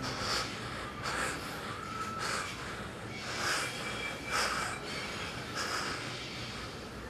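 A man breathing heavily in short, ragged rasps, about one breath a second.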